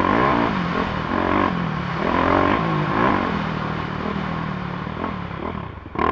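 450cc four-stroke dirt bike engine being ridden hard, the revs climbing and dropping over and over as the throttle is opened and eased, and backing off near the end before picking up again.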